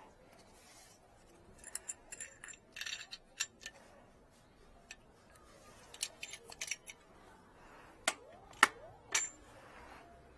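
Small metal clicks and clinks from handling a stainless-steel valve assembly and its brass fittings, coming in scattered runs, then three sharper metal knocks close together about eight seconds in.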